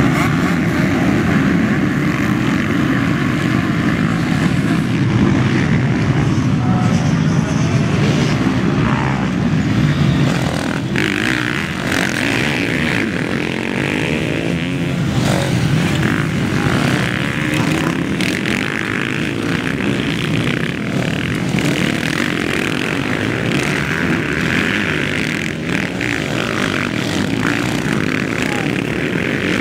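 Many motocross motorcycle engines running hard at high revs as a pack of dirt bikes accelerates away over a dirt track. Individual bikes then come past, their engines rising and falling. The sound is a little louder in the first ten seconds.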